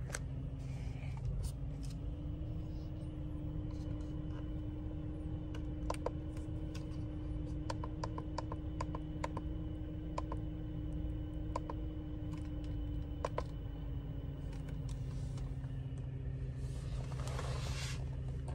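Dodge Journey's engine idling steadily, heard from inside the cabin, with a scatter of short plastic clicks from the steering-wheel buttons being pressed to scroll the gauge-cluster menu, mostly in the middle of the stretch.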